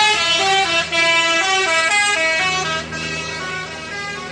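A bus's multi-tone telolet horn playing a quick melody, its notes stepping up and down about four or five times a second. The tune drops away in loudness near three seconds in, leaving fainter notes over a steady low engine hum.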